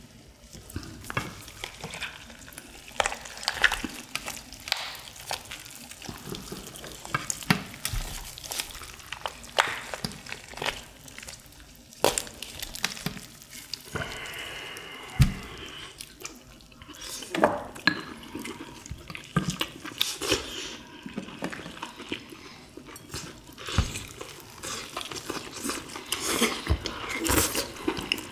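Wet tearing and squishing of whole boiled chicken pulled apart by hand, then chewing and lip-smacking as the meat is eaten off the bone, with many short wet clicks.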